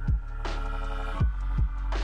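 Electronic dance music with a heavy sub-bass, punchy kick drums and sustained synth chords, with a rising noise sweep near the start.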